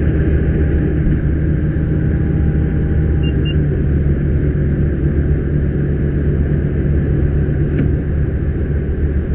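Fire engine's engine running steadily at pump speed, driving the fire pump, with a constant low hum.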